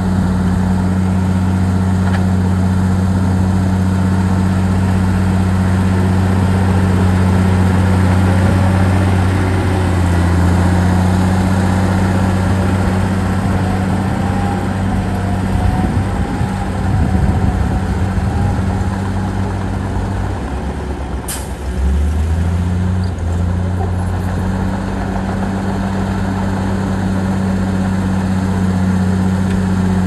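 Heavy diesel engine of earthmoving machinery running steadily under load. Its note shifts and dips about two-thirds of the way through, and a short sharp hiss comes at the same point.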